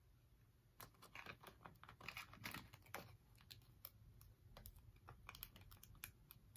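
Faint, irregular clicking and scratching of long fingernails on a small wooden tray and a clear plastic transfer sheet as vinyl letters are pressed down and smoothed. It starts about a second in.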